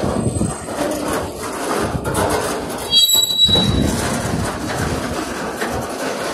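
Freight cars of a CSX train (centerbeam flatcars loaded with lumber) rolling past close by, their wheels rumbling over the rails, with a brief high wheel squeal about three seconds in.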